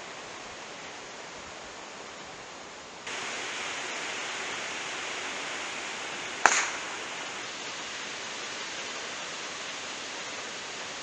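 Steady outdoor background hiss that gets louder about three seconds in. About six and a half seconds in, one sharp, ringing crack of a golf club striking the ball on a tee shot.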